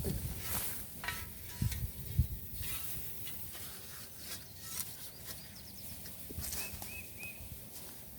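Digging in garden soil among weeds: dull thuds of a tool going into the dirt, with scraping and rustling. The two loudest thuds come about two seconds in.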